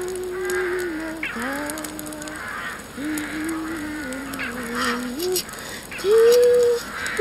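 A slow, wordless melody of long held notes with a nasal, reedy tone. Each note slides up into its pitch, and the line steps gradually downward before jumping to a higher note near the end. Faint scattered clicks sound behind it.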